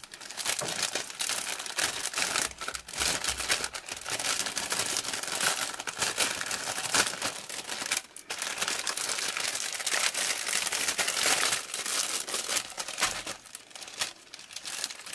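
Clear plastic packaging crinkling and rustling as hands handle and pack products into a mailer, nearly continuous, with a brief pause about eight seconds in and a quieter stretch near the end.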